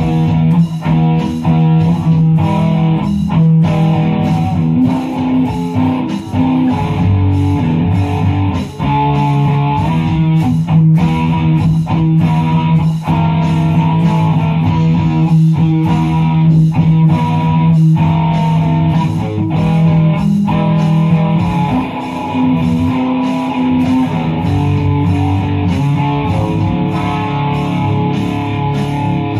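Electric guitar music: a guitar playing held notes over a steady beat.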